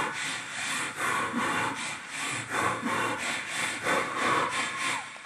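Vocal mimicry through a cupped handheld microphone and stage speakers: a run of rasping, hissing mouth-made strokes, irregularly about two a second.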